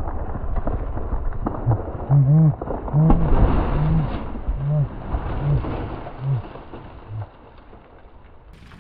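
A pine tree cracking, falling and crashing down onto a car, with a run of sharp cracks and heavy thuds in the first half that die away towards the end.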